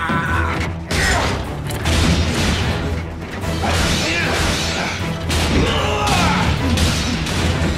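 Cartoon fight soundtrack: a dramatic score with a steady low drone under robot sound effects, namely mechanical servo whirs, gliding whines and repeated metal impacts and crashes.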